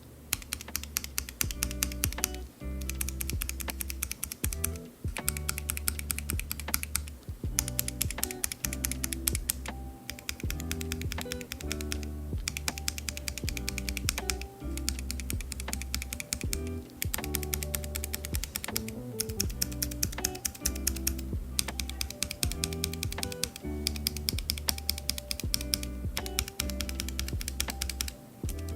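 Different mechanical keyboard switches being typed on quickly, one switch type after another: runs of rapid clacking clicks about two and a half seconds long, each ended by a brief pause, over background music with a steady bass line.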